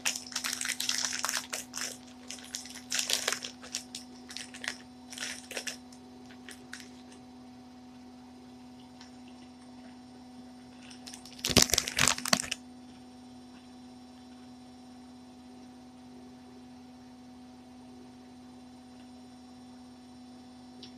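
A crinkly snack packet being torn open and rustled in the hands, in a run of sharp crackles over the first six seconds, then one more loud crackling burst about eleven seconds in. A steady low electrical hum runs underneath.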